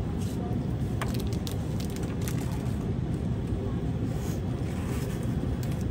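Steady low background rumble with a few faint clicks a second or two in.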